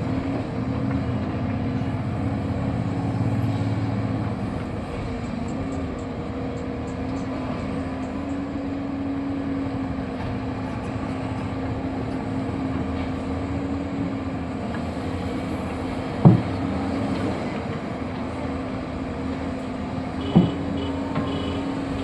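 Excavator running steadily with a held hum, a little louder for the first few seconds, and two sharp knocks about four seconds apart in the second half.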